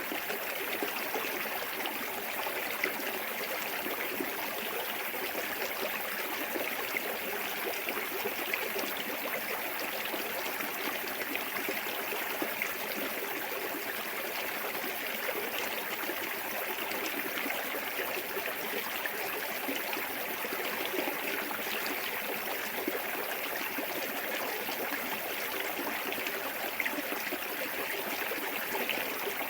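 Small waterfall on a clear forest stream, water running and splashing steadily with a constant rush.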